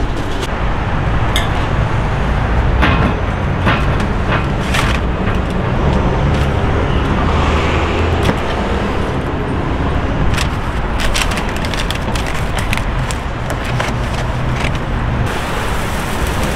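Steady low rumble under scattered sharp clicks and rustles as barbecued chicken is wrapped in paper and meat is handled on the grill rack.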